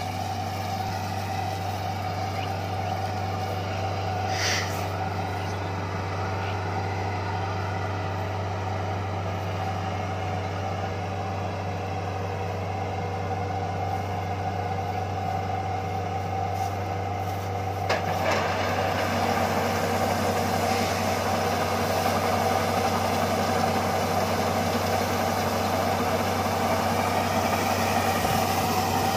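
Kubota combine harvester's diesel engine running steadily. About 18 seconds in there is a click and the sound grows fuller and brighter as the unloading auger starts, pouring threshed rice grain out of the spout.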